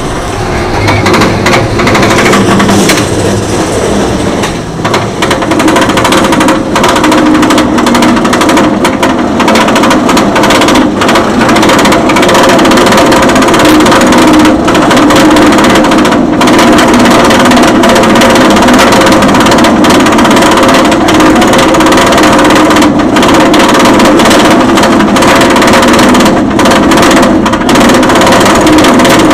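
Lift-hill chain of a Bolliger & Mabillard inverted roller coaster hauling the train up the hill: a loud, steady mechanical clanking and rattle with many quick clicks running through it, with the chain drive humming underneath.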